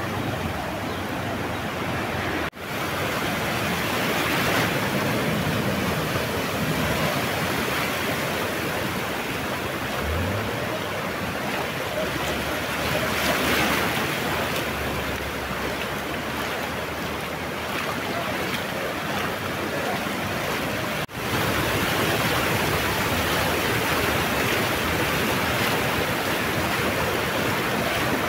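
Floodwater from an overflowing stream rushing across a highway in a steady, even rush, with vehicles splashing through it. The sound cuts out for an instant twice.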